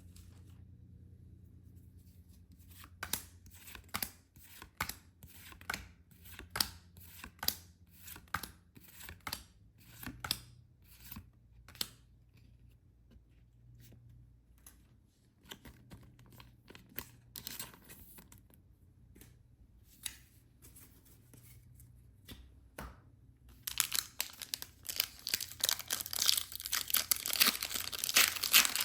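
Plastic packaging being torn open by hand: scattered sharp crackling tears, then continuous louder crinkling and tearing in the last few seconds.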